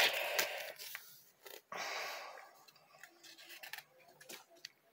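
Paper rustling and sliding as printed magazine pages are handled: a swish at the start and another about two seconds in, with faint small ticks between.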